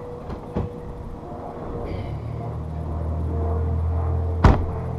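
A vehicle engine running with a low steady hum, louder from about a second and a half in, with a single sharp knock near the end.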